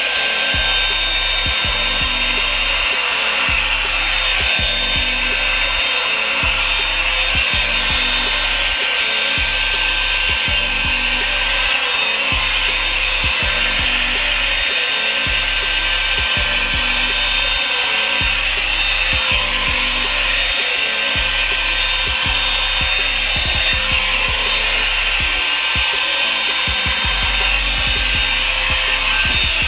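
Revlon brush blow dryer running steadily: a loud, even rush of air with a thin motor whine in it, over background music with a steady beat.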